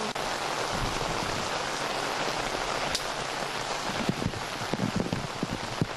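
Steady hiss of rain and floodwater. From about four seconds in, a quick run of low thumps rides over it.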